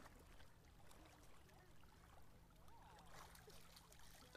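Near silence: a faint steady hum under faint water sounds.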